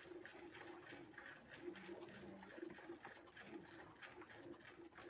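Faint, rhythmic squirts of milk into a steel pail as a cow is milked by hand, over a low pulsing tone.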